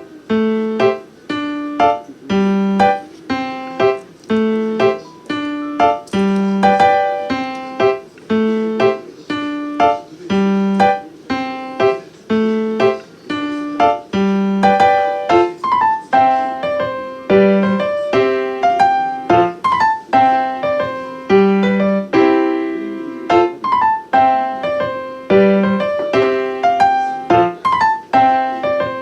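Solo piano background music: a steady run of struck notes, each dying away, in an even rhythm.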